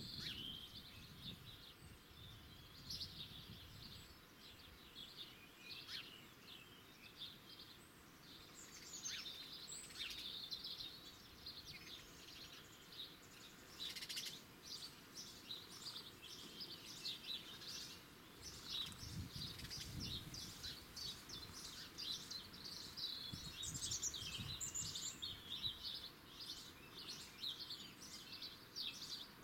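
Wild birds singing, a busy outdoor chorus of short high chirps and song phrases, with a faint low rumble now and then.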